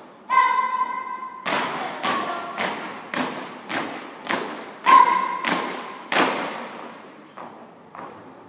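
Marching feet of a flag escort squad stamping in step on a concrete court, a sharp stamp about every half second, loud for about five seconds and then lighter. A long high-pitched call sounds at the start and a short one about midway.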